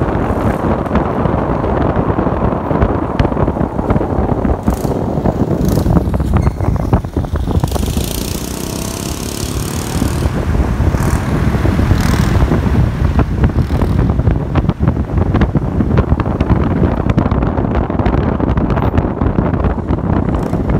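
Road and wind noise of a moving car, with wind buffeting the microphone; a brighter hiss comes in for a couple of seconds around the middle.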